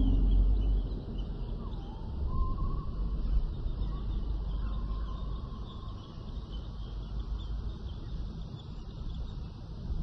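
Prehistoric forest soundscape: a steady low rumble under a high hiss, with a few faint bird-like calls gliding in pitch in the middle. A loud deep rumble fades out during the first second.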